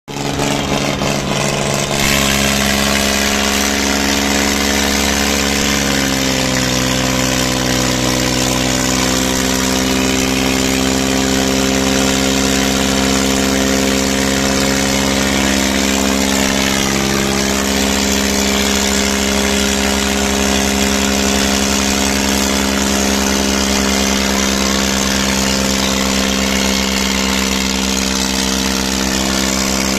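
Diesel tractor engines running steadily at high level, their pitch shifting slightly a couple of times in the first few seconds.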